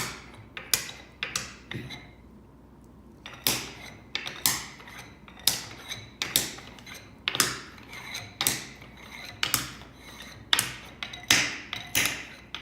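Wooden beads clacking against each other, a run of sharp knocks at irregular spacing, about two a second, with a short pause about two seconds in.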